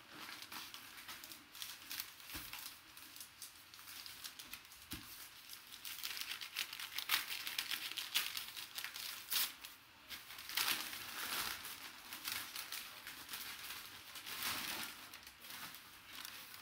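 Brown kraft packing paper crinkling and rustling as it is pulled and torn off a wrapped basketball, busier and louder from about six seconds in.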